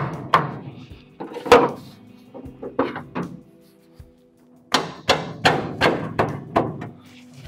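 Sheet metal on the front end of a 1958 Ford F100 being knocked and shifted by hand: irregular metallic thunks with a short ring, a few at first, then a quick run of about half a dozen in the second half. Background music plays underneath.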